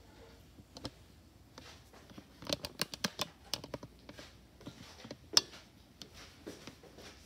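Light clicks and taps of dishes and ramekins being handled and set down on a granite counter, a quick cluster about three seconds in and one sharper knock a little after five seconds.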